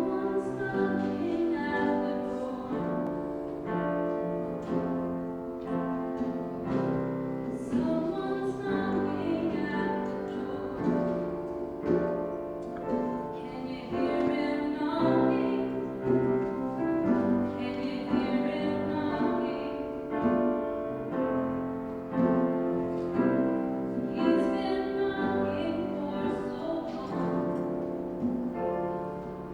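A gospel vocal group singing in harmony with piano accompaniment, held chords changing every second or so.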